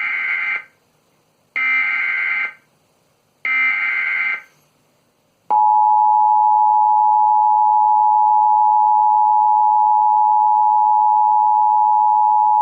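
Emergency Alert System broadcast tones: three short, harsh digital data bursts (the SAME header that encodes the warning), each about a second long and a second apart, then the two-tone EAS attention signal starting about five and a half seconds in and holding loud and steady.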